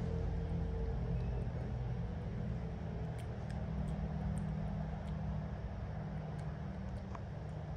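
A steady low mechanical hum, with a few faint light clicks over it.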